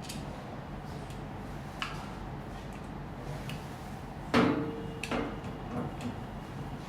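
Small clicks and knocks of parts being handled as a plastic holding part is fitted to the machine, with one louder knock that rings briefly about four seconds in, followed by a few lighter knocks.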